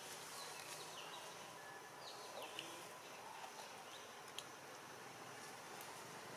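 Faint outdoor forest ambience with a few short, high, falling chirps and a couple of faint clicks.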